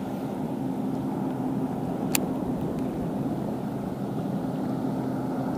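A steady low motor drone with a few constant tones, never changing in pitch, and a single sharp click about two seconds in.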